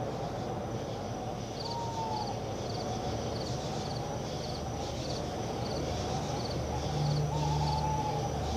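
Steady low rumbling noise with a short, high insect-like chirp repeating about twice a second from a few seconds in. A brief whistled tone sounds twice, and a low steady hum comes in near the end.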